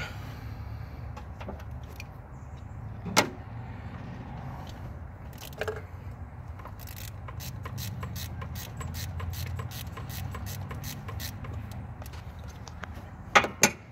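Ratchet and socket clicking in irregular runs as a spark plug is worked loose, with a sharp metal click about three seconds in and two louder ones near the end. A low steady hum runs underneath.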